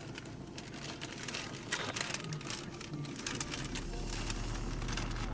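Paper and plastic wrapping of a large parcel crinkling and rustling as it is handled and torn open, with scattered small crackles. A low steady hum comes in after about three and a half seconds.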